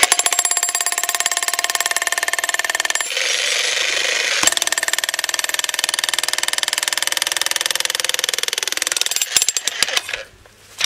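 VEVOR 3500 W electric demolition hammer with a chisel bit hammering rapidly and steadily down into a stone slab until the slab splits through. It stops about nine seconds in, followed by a few separate knocks.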